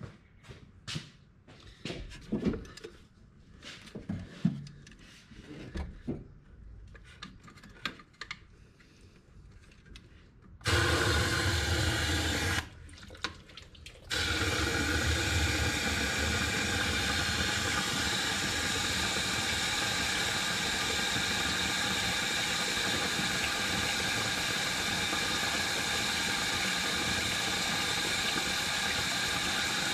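Light handling knocks and clicks, then about ten seconds in a garden hose's water starts rushing through the BMW 2002's engine block, flushing out the cooling passages and pouring from the water-pump opening. The flow stops for a moment about two seconds later, then resumes and runs steadily.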